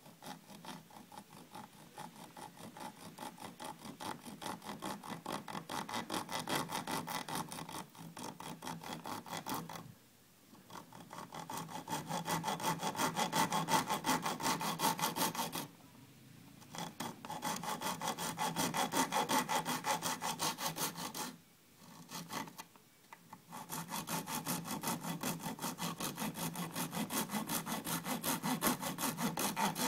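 Bare hacksaw blade, held by hand, sawing a slot into the end of a small round wooden stick, in short quick strokes at a steady rhythm. It stops briefly three times.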